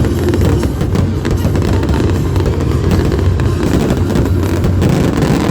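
Loud music with a heavy low end, mixed with the bangs and crackle of fireworks going off.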